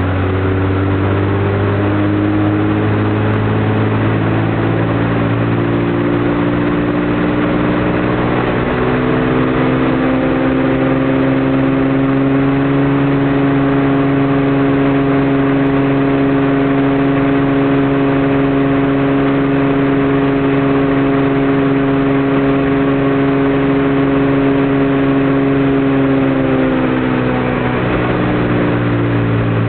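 Cessna 210's six-cylinder piston engine and propeller on a ground run-up: the engine speed climbs smoothly over about ten seconds to a high power setting, holds steady for roughly fourteen seconds, then is throttled back down near the end.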